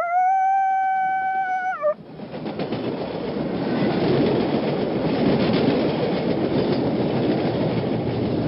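A train sounds one steady horn note for about two seconds, dipping slightly in pitch as it ends. Then the rumble and clatter of the moving train build up and continue.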